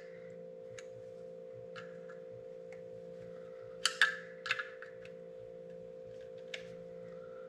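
Small clicks and light clatter of a screwdriver working on a plastic breaker block from a fuse box, the loudest cluster about four seconds in. A steady low hum runs underneath.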